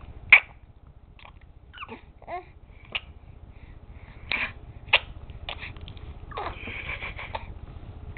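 A baby making sharp mouth clicks, several in a row with the loudest about a third of a second in, mixed with short babbling vocal sounds.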